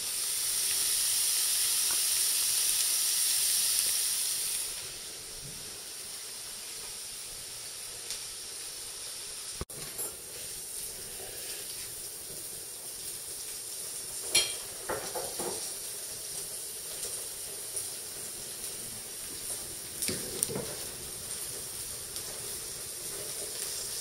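Food sizzling in a frying pan: a loud hissing for about the first five seconds that drops suddenly to a fainter steady sizzle, with a few light clicks.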